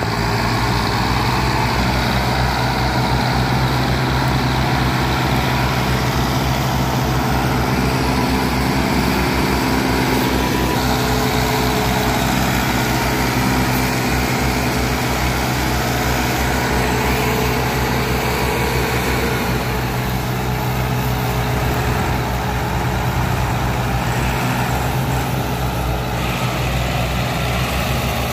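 Massey Ferguson 360 tractor's three-cylinder diesel engine running steadily under heavy load, hauling a trolley piled with sugarcane.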